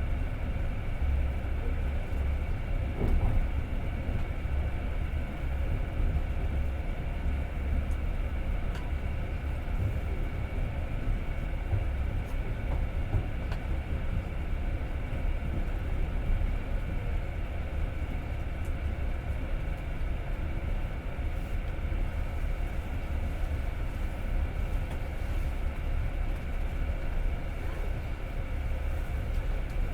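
Passenger train carriage running along the track: a steady low rumble of wheels on rails, heard from inside the car.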